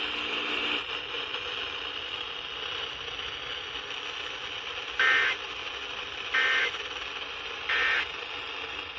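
Emergency Alert System end-of-message data burst played over FM radio: three short, loud, buzzy bursts of two alternating tones about 1.3 seconds apart, starting about five seconds in, over a steady radio hiss.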